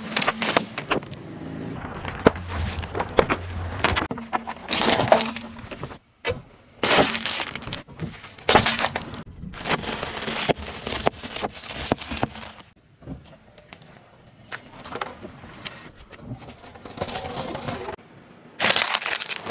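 A car tyre rolling slowly over a series of objects and crushing them: cracking, crunching and splintering, with a spray of liquid in the first crush and packets of dry instant ramen noodles crunching under the tread later. The crushes come in several separate clips divided by abrupt cuts.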